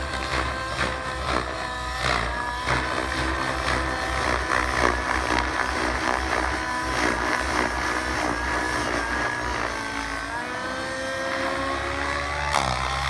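Glow-fuel (nitro) engine of a SAB Goblin 700 radio-controlled helicopter running steadily in flight, its pitch held nearly constant by a Maxx flybarless governor keeping head speed. About ten seconds in the pitch sags briefly and then climbs back.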